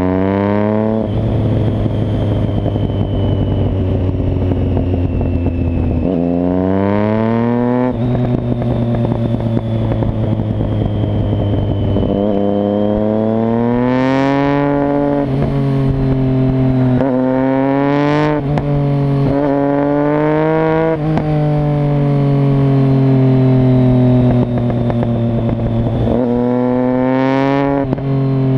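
Motorcycle engine running under way, its pitch climbing several times as it accelerates out of bends and falling back sharply as the throttle closes or the gears change.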